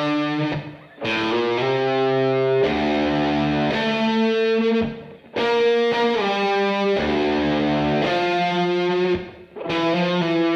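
Background rock music: distorted electric guitar playing long held chords, with three short breaks between phrases.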